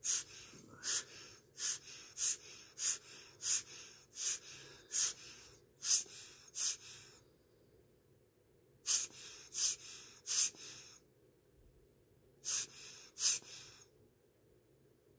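Rubber hand air-blower bulb being squeezed, puffing short hisses of air onto an open mechanical watch movement. There are about ten quick puffs, then four, then two, each roughly two-thirds of a second apart.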